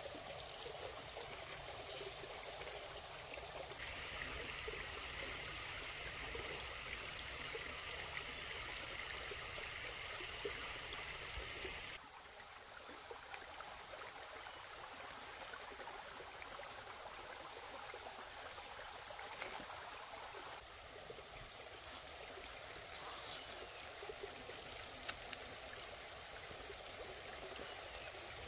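Insects chirring steadily over the running water of a stream, with a few faint clicks. The whole ambience drops in level abruptly about twelve seconds in.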